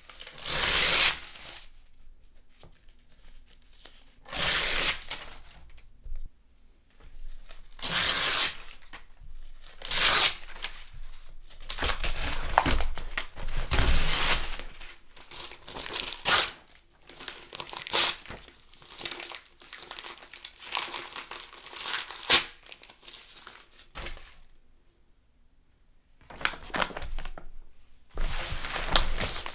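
Magazine pages being torn again and again: a series of separate rips, some quick and sharp, some drawn out, with crinkling of the glossy paper between them and a pause of a couple of seconds near the end.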